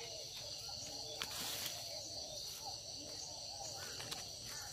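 Crickets trilling in a steady high drone, with many faint short chirping calls lower down and a brief rustle of a hand in the leaf litter about a second and a half in.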